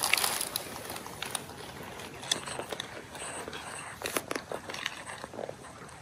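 Dry fallen leaves and twigs crunching and crackling underfoot in irregular snaps and rustles, loudest about the start.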